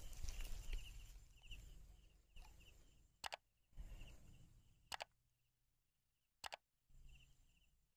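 Three sharp clicks from an animated like-and-subscribe button overlay, under faint outdoor ambience with a fading low wind rumble and a high chirp repeating about twice a second.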